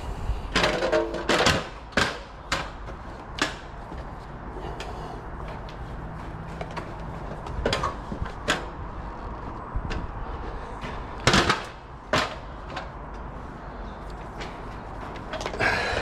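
Aluminium stepladder clanking and knocking as it is handled and moved, in a dozen or so irregular knocks. The loudest come in a cluster at the start, about two-thirds of the way through, and near the end.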